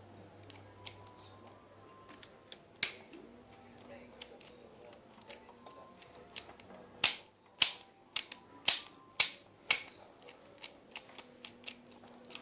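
A series of sharp clicks and knocks from an old radio-cassette player being handled and worked on by hand. The clicks are scattered at first, then come louder, about two a second, in the middle of the stretch.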